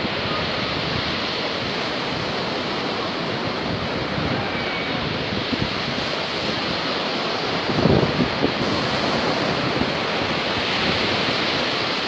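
Sea surf breaking steadily on a beach, with wind buffeting the microphone in a few low gusts, the strongest about two-thirds of the way through.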